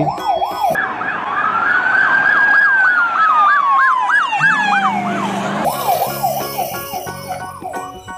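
Police car siren: a fast yelp sweeping up and down about three times a second, with a long slow wail rising and falling over it through the middle, then back to the fast yelp alone.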